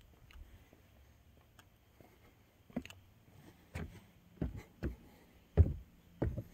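Footsteps on wooden deck boards. After a quiet start they begin about three seconds in and come roughly once or twice a second.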